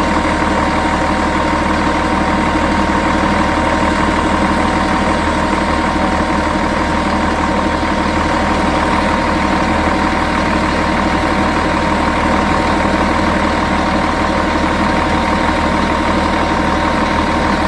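Volvo Olympian bus's D10A-245 inline-six diesel engine idling steadily, with a steady high-pitched tone over the engine's even running. The owner finds the idle sound odd.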